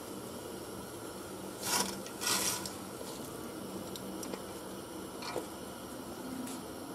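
Dry spaghetti going into a stainless-steel pot of boiling water: two short swishes about two seconds in as the bundle slides in against the pot, then a few faint ticks as the strands are pushed down, over the steady hiss of the boiling water.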